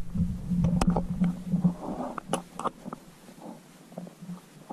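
Muffled underwater sound picked up through a GoPro's waterproof housing at the bottom of a stone well: a low rumble that fades out about halfway through, with scattered sharp clicks and knocks.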